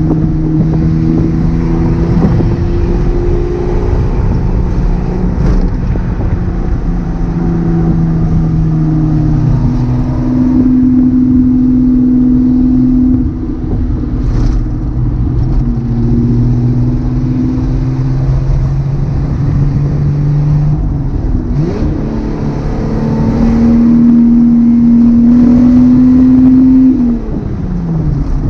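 1978 Datsun 280Z's straight-six engine and exhaust running under way, holding steady revs that step up and down in pitch. It rises to a louder, higher note twice, the second time held for several seconds before the revs fall away sharply near the end.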